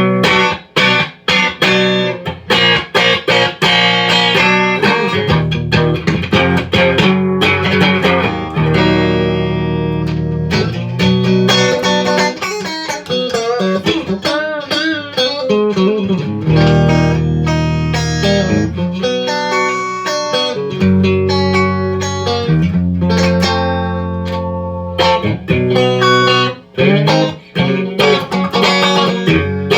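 Electric guitar on its DiMarzio X2N bridge pickup, played clean through a Marshall Origin 20 amp: picked chords and single-note lines, with a wavering vibrato note around the middle.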